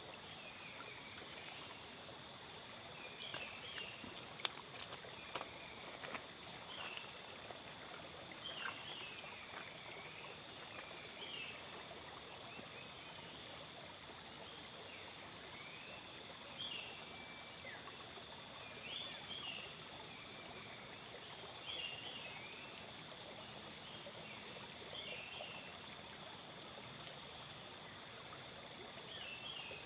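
Insects, likely crickets, trilling steadily and high-pitched, with a second insect chirping in short pulsed bouts every few seconds. Birds give short chirps now and then throughout.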